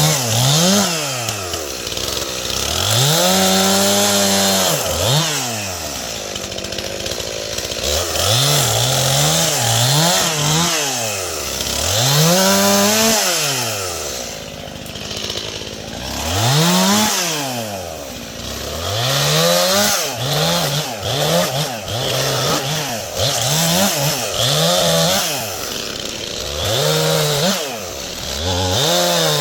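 Stihl MS 291 two-stroke chainsaw cutting oak branches. It is repeatedly throttled up to full revs, held there, and let fall back toward idle, about a dozen times.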